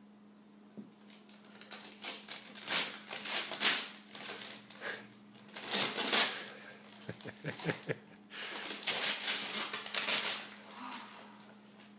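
Wrapping paper crinkling and tearing as a present is unwrapped, in several irregular bursts of rustling.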